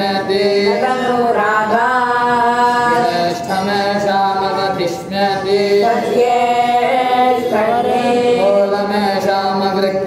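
A man's voice chanting Vedic Sanskrit mantras into a microphone, in long held notes that step and glide up and down in pitch, with only brief breaths between phrases.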